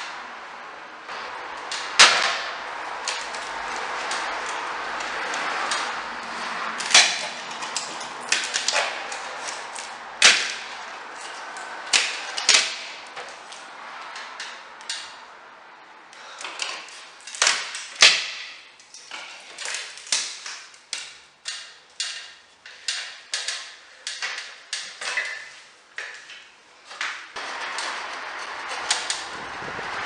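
A metal hand tool knocking and scraping at a wooden door frame while old paint and wood are worked back: irregular sharp taps at first, then a steadier run of knocks about one and a half a second in the second half.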